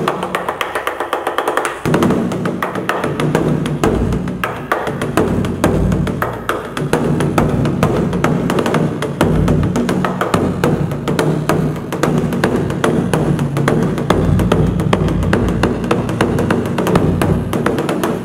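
Large Korean barrel drum (buk) beaten with a wooden stick in a fast, continuous roll of many strokes a second, the deep booms of the drumhead under the sharp clack of each stick hit. The low booming grows heavier about two seconds in.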